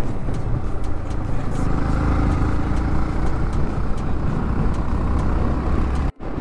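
Yamaha MT-15's 155 cc single-cylinder engine running in fifth gear, with heavy wind rush from riding at speed. The sound drops out for a moment about six seconds in.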